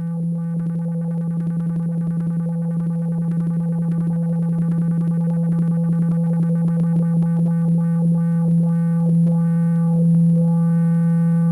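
Background synthesizer music: a held low drone under a fast, pulsing run of notes that quickens in the middle and then slows.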